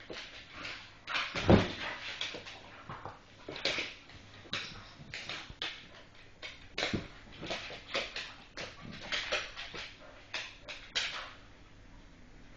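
Staffordshire bull terriers tussling, a run of short, irregular dog sounds and scuffles, with a heavy thump about one and a half seconds in.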